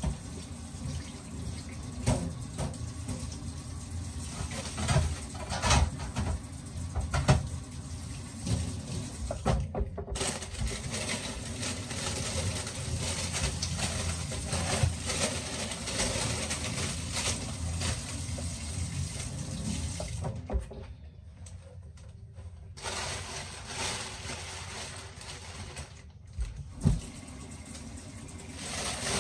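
Kitchen tap running steadily into a stainless steel sink as vegetables are rinsed under the stream, with frequent knocks and rustles of produce and plastic packaging being handled. The water sound drops away briefly about ten seconds in and a couple of times after twenty seconds.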